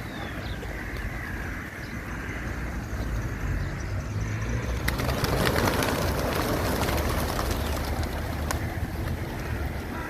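A flock of pigeons flapping their wings, a clattering whir that swells about five seconds in and then eases, over a low steady rumble.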